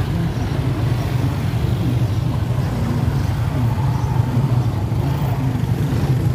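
Motor vehicle engine running steadily, a continuous low drone.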